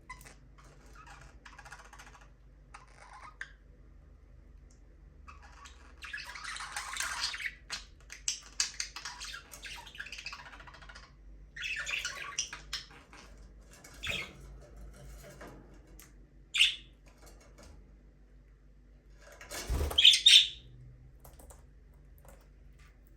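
Pet budgerigars chattering and squawking in scattered bursts, with short sharp calls in between; the loudest burst comes near the end, opening with a low thump.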